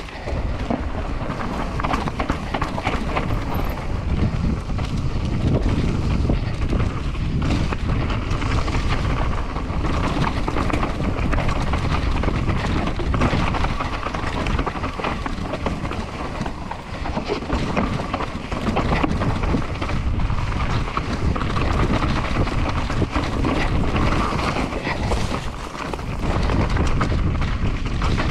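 Mountain bike riding down a rough dirt trail, heard from an action camera: wind buffeting the microphone over the rumble of tyres on dirt and rock, with many small knocks and rattles from the bike.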